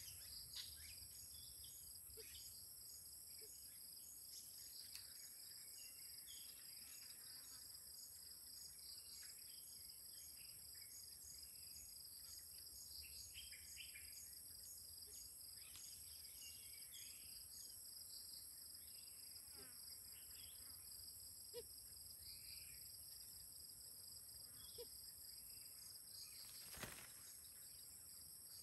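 Faint, steady, high-pitched insect chorus, one voice pulsing in a fast trill, with scattered bird chirps and a single soft click near the end.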